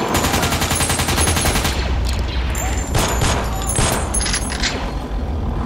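Battle sound effects: rapid machine-gun fire for the first couple of seconds, then scattered single gunshots, over a low rumble that sets in about two seconds in.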